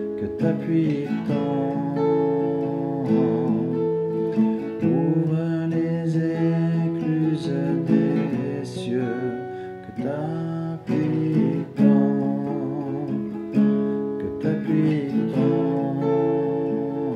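Worship song music led by strummed acoustic guitar, with some singing.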